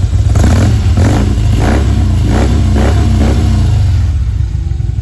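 2014 Harley-Davidson Ultra Glide Limited's Twin Cam 103 V-twin breathing through Rinehart aftermarket exhausts. The throttle is blipped several times in quick succession, then the engine settles back to a steady idle near the end.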